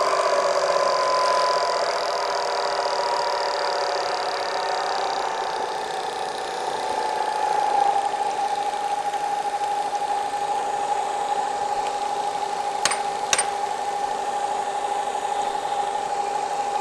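Supermax vertical milling machine's variable-speed head running at high spindle speed, a steady whine that drops slightly in pitch in the first several seconds and then holds even. Two sharp clicks come close together about two thirds of the way through.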